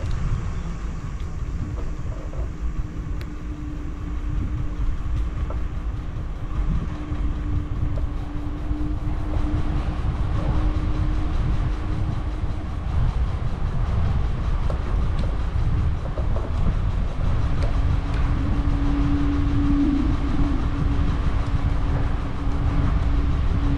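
Moving vehicle: a steady low rumble with a steady hum that drops out in the middle and comes back near the end.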